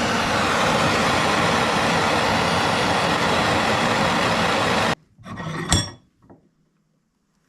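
Loud steady rushing noise from a workshop tool that cuts off sharply about five seconds in, followed by a short metallic clank.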